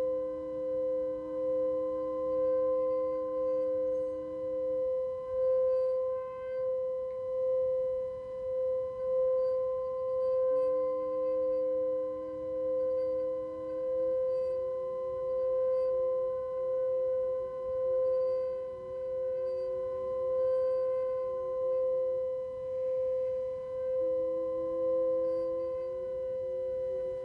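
Tibetan singing bowl sounding a steady sustained tone with a slow pulsing waver in loudness, a lower second tone fading in and out beneath it.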